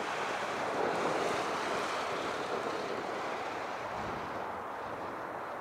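Steady rushing roar of a Boeing 747-8F's four GEnx turbofans on final approach, still some way off, easing slightly near the end.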